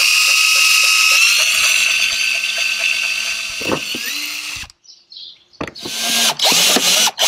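Cordless drill running steadily for about four and a half seconds, drilling into a plastic kayak hull, then stopping. After a short pause it is run again in several short trigger bursts.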